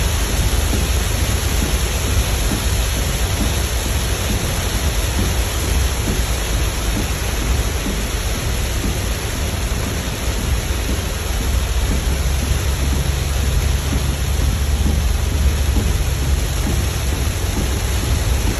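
Heavy rain drumming on a car's roof and windscreen, heard from inside the cabin: a loud, steady hiss with a deep rumble underneath.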